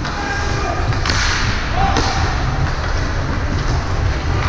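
Game-side ambience: a steady low rumble, with a sharp knock about a second in and a brief voice-like call shortly after.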